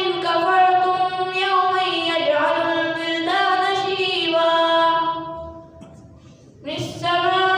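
A boy's voice in melodic Quran recitation (tilawat), holding long notes with slow turns of pitch. It trails off about five seconds in for a breath and starts again about a second and a half later.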